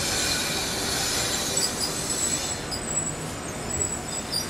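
Circumvesuviana electric multiple-unit train pulling into the station, its wheels squealing on the rails: a shrill high squeal that eases after about two and a half seconds into thinner, broken squeaks, over a low rumble.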